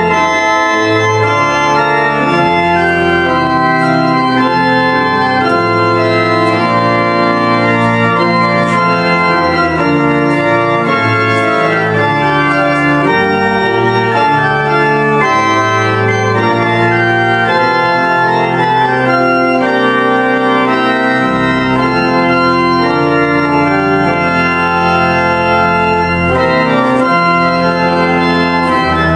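Pipe organ playing slow, held chords over a sustained pedal bass, the chords changing every second or so at a steady level.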